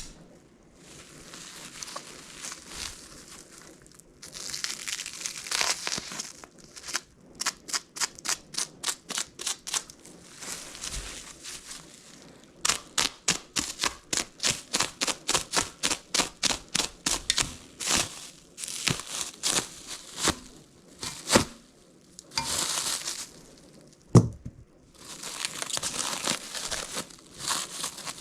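Plastic packaging being torn and crinkled off a new pair of forge tongs. Rustling alternates with long runs of quick, evenly spaced rasping strokes, and there is one sharp knock near the end.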